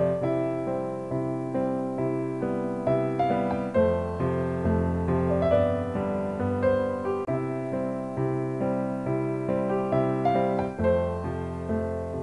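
Slow, gentle piano music: soft chords and single notes, each struck and left to fade.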